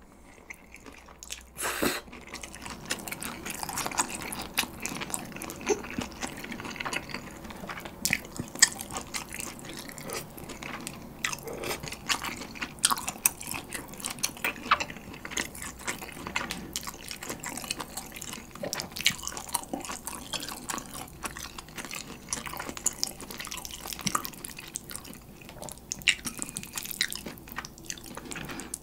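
Close-miked eating sounds: a slurp of instant bibim ramen noodles about two seconds in, then wet chewing of the noodles and pork belly with many small, sticky mouth clicks.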